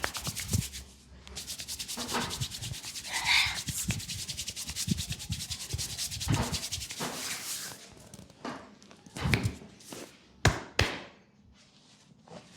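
Fast, even rubbing strokes of a hand massage on skin, many strokes a second. After about seven and a half seconds they give way to a few separate taps and knocks.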